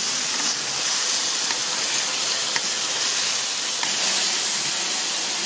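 Stir-fried sliced meat sizzling steadily in a large wok, with a few faint clicks.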